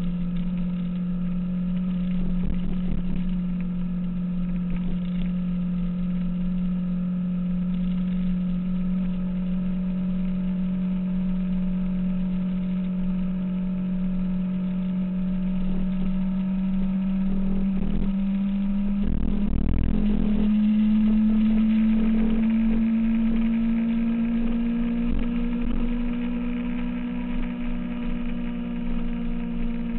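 2006 Kawasaki ZX-6R's inline-four engine running at a steady cruise. Its note rises slowly in pitch about two-thirds of the way through as the bike picks up a little speed, then holds.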